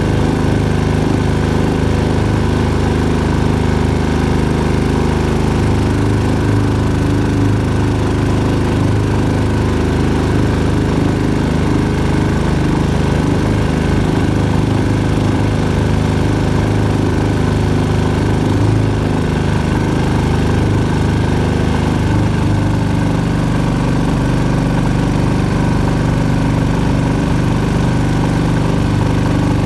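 Predator 6.5 hp single-cylinder four-stroke engine driving a small boat motor, running steadily under way. Its pitch shifts slightly about two-thirds of the way through.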